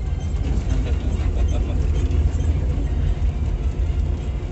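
Old hardtop 4x4 jeep driving over a rough dirt track, heard from inside the cabin: a steady low engine and road rumble with faint rattles.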